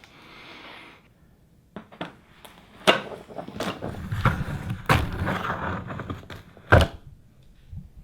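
Cardboard box being opened and its contents handled: rustling and scraping with several sharp knocks, the loudest about three seconds in and again near the end.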